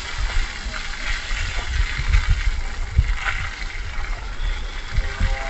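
A jet of water from a garden hose spraying over an elephant and splashing onto the wet concrete, a steady hiss. Wind buffets the microphone in low gusts underneath.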